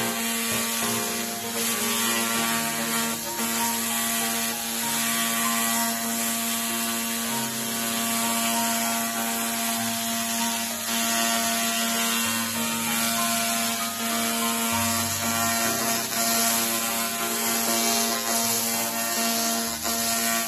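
Handheld fiber laser cleaning head working over a metal surface to strip rust or paint, giving a loud, steady, dense hiss.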